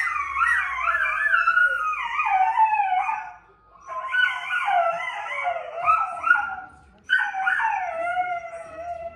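Pet dog howling with its muzzle raised, in three long, wavering bouts whose pitch slides up and down, with short breaks about three and seven seconds in.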